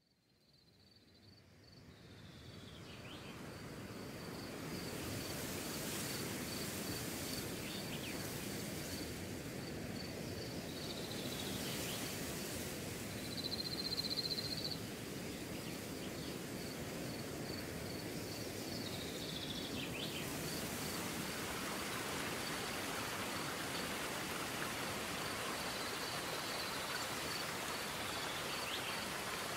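Steady rush of flowing creek water, fading in over the first few seconds. A faint, regular high insect chirp pulses over it, with a few short descending calls.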